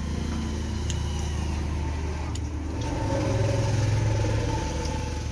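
An engine running steadily with a low drone, rising a little about three seconds in and easing again near the end, with a couple of faint clicks.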